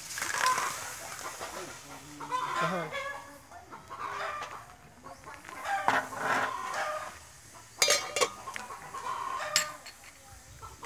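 Chickens clucking repeatedly. At the start water is poured into an aluminium cooking pot, and near the end a few sharp clinks against the pot.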